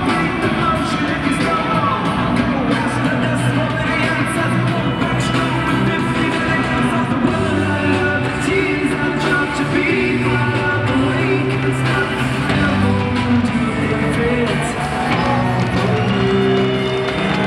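A rock song with singing plays loudly over an ice hockey arena's sound system, with crowd yelling mixed in.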